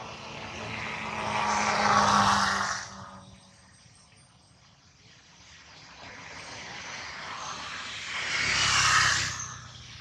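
An engine passing by twice: it swells up to a peak about two seconds in and drops away, then a second one builds up and passes near the end.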